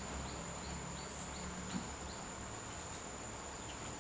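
Faint insect chirps repeating about three times a second and dying out past the middle, over a steady high-pitched whine and a low hum.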